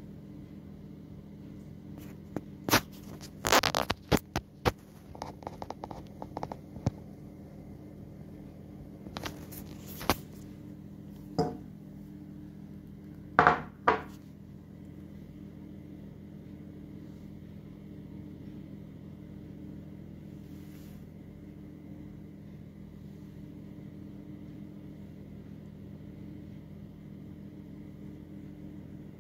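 A heavy black marble doorstop with a gold-plated steel base ring knocking and scraping on a stone countertop as it is handled and turned over: scattered sharp knocks in the first half, the loudest pair just before halfway through, then only a steady low hum.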